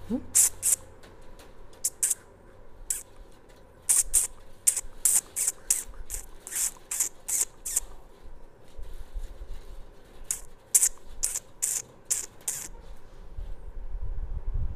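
Frightened kittens hissing and spitting in short, sharp bursts, many in quick succession, stopping near the end. The hissing is a sign of fear and defensiveness toward a person at the cage.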